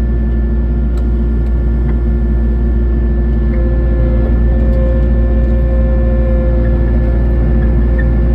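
Kubota SVL90-2 tracked skid steer's diesel engine running steadily under load while it drives a hydraulic snowblower. It makes a heavy low drone with steady whines over it, and a further whine comes in about three and a half seconds in.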